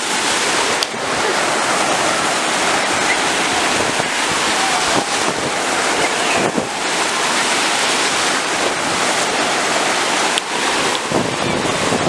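Sea surf breaking and foaming in shallow water, a steady rush of waves.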